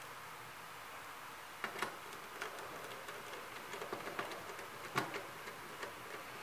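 Light clicks and taps of hands and a screwdriver working on a plastic laptop base and its metal hinge mount, over a steady low hiss. Two quick clicks come a little under two seconds in, and the sharpest comes about five seconds in.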